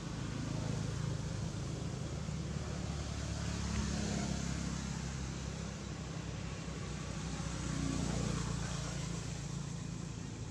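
Low, steady engine rumble, swelling slightly twice and easing off.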